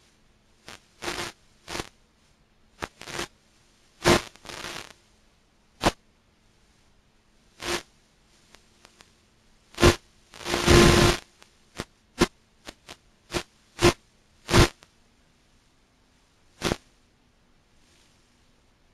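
Irregular bursts of static crackle, short and sharp-edged, from an analog FPV video link's audio channel, over a faint steady hum; the longest and loudest burst comes about halfway through and lasts about a second.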